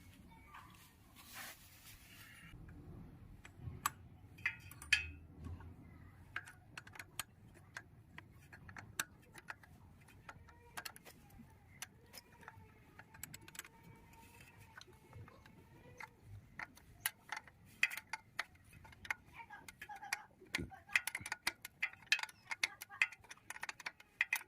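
Light metal clicking and ticking from a bike chain being worked on, irregular and coming faster in the last few seconds.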